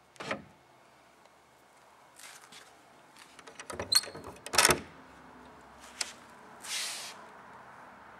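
Cabinet door of a solid oak dresser being unlatched and opened: a run of wooden knocks and metal latch clicks, loudest in a cluster about four to five seconds in, one with a short metallic ring. A single click follows, then a brief swish.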